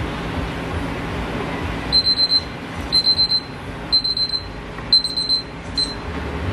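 Digital kitchen timer beeping as its countdown runs out, the signal that the tea's steeping time is up: high-pitched beeps in quick runs of about four, repeating once a second, starting about two seconds in. The fifth run is cut short as the timer is stopped.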